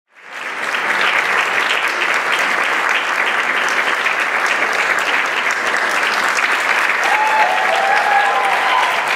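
Audience applauding steadily, fading in at the very start.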